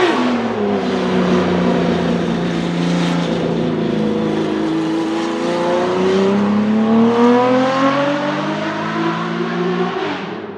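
Porsche 917 race car's air-cooled flat-12 engine running hard on track: a quick rise and fall in revs right at the start, then a steady note, then revs climbing slowly and steadily over the second half as the car accelerates.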